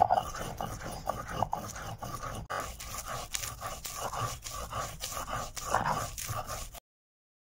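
Stone roller (batta) rolled and rocked back and forth over a grooved grinding stone (sil), crushing roasted green chillies and garlic into a chutney paste: a rhythmic rasping stone-on-stone scrape. It stops suddenly near the end.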